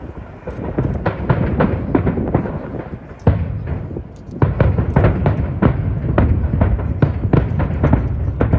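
Aerial fireworks bursting in rapid succession, several bangs a second over a deep rumble. One especially loud bang comes about three seconds in.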